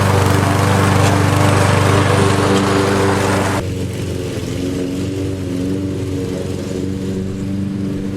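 Lawn mower engine running steadily. About halfway through, the high hiss drops out suddenly and the engine carries on a little quieter.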